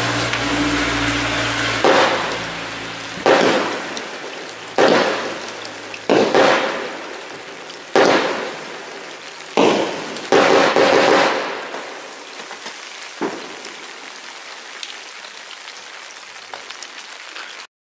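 20 mm firework cake (Kimbolton 'Bees in the Trees') firing its last shots: about eight sharp launch bangs, each trailing into hissing and crackling. The shots come further apart after about ten seconds, leaving a fading crackle with one more bang, before the sound cuts off abruptly near the end.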